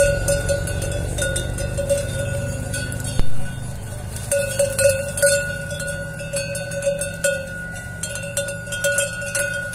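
A cowbell (cencerro) on a grazing mare's collar clanks irregularly as she tugs at and eats giant cane stalks. Its ringing tone swells and fades with her head movements, over crackling from the cane.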